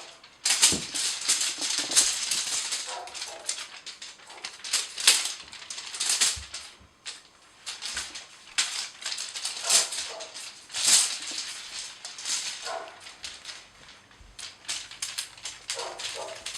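Irregular rustling, crinkling and scratching strokes as a Scottish Fold cat plays with a toy, paws scrabbling and batting at it.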